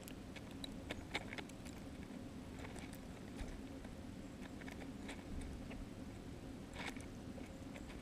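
A European starling pecking at sunflower seed in snow close to the microphone: irregular sharp taps and clicks of its bill on seed husks, the sharpest about seven seconds in, over a low steady hum.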